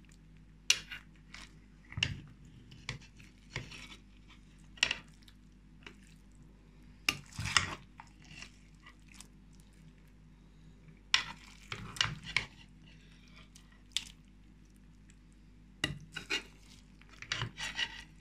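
Metal spoon scraping and clinking in an oval aluminium roasting pan while baked potatoes with egg are scooped out onto a porcelain plate, in irregular scrapes and knocks.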